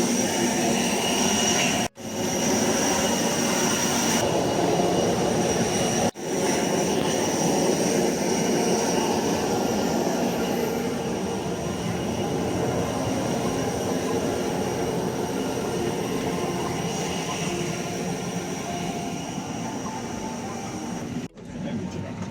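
Steady engine noise heard from inside a vehicle: a dense rumble with a faint high whine above it. It drops out abruptly for an instant three times, about two, six and twenty-one seconds in.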